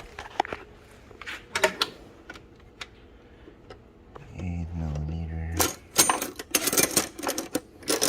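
Metal hand tools clicking and clattering as they are picked through, sparse knocks at first and a dense rattle in the last couple of seconds, with a low hum for about a second halfway through.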